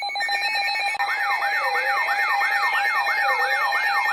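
Electronic emergency-alert attention tone: a steady beep tone, joined about a second in by an electronic siren that sweeps up and down quickly, about two and a half times a second, with a slower wail beneath it.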